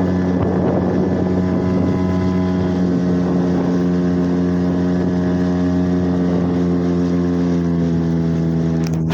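HDX 5 hp outboard motor running steadily at an even pitch, pushing a small boat under way, with some wind noise on the microphone.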